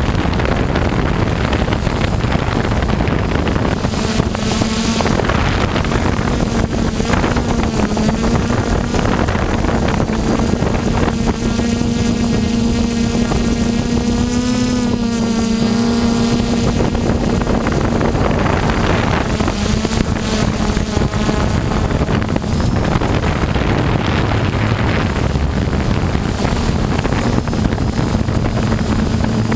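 DJI Phantom quadcopter's E-MAX 2213 935KV brushless motors and 10-inch propellers whirring in flight, heard up close from the airframe. A steady loud hum whose pitch wavers slightly as the motors change speed.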